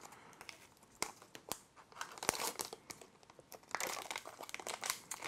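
Foil wrapper of an instax Square film pack crinkling and tearing as it is peeled open and the film cartridge is pulled out. It comes as scattered crackles, sparse at first and busier in the last second or so.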